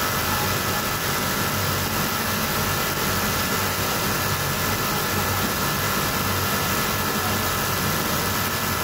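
Brother two-needle industrial sewing machine running steadily as it topstitches a fabric band, against the hum of other sewing machines in the workroom.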